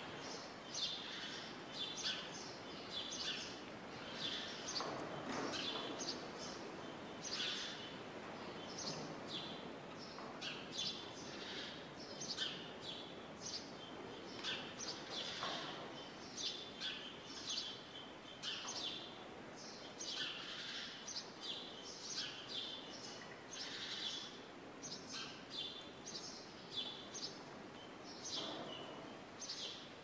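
Small birds chirping and twittering, a steady stream of short high calls several times a second, over a soft background hiss that swells now and then.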